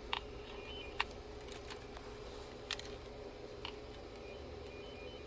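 A few sharp clicks, about four spread over five seconds, from phone wiring being handled at the panel. They sit over a steady electrical hum, and faint short high beeps come twice.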